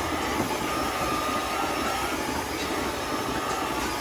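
Milking parlour machinery running steadily: a continuous hiss and hum from the milking vacuum system and equipment.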